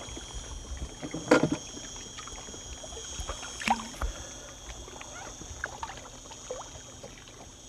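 Water sloshing around a small fishing boat while a hooked pike is played at the surface alongside, with a sharp splash about a second and a half in and a smaller one near four seconds.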